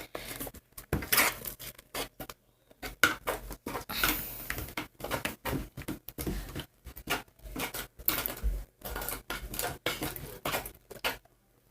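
Slime being stirred in a bowl with a utensil: irregular clinks and scrapes, several a second.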